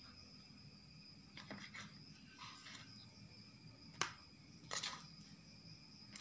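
Quiet background with a steady faint high whine and a few faint handling clicks and knocks, the sharpest one about four seconds in.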